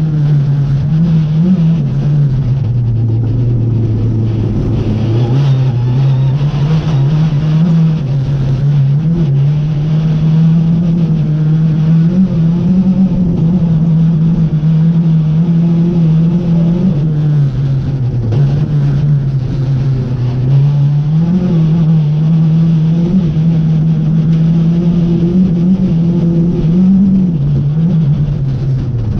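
Rally car engine heard from inside the cockpit, held at high revs at full attack on a gravel stage, the pitch dropping briefly several times as the driver lifts and shifts gear, with a longer dip about three seconds in.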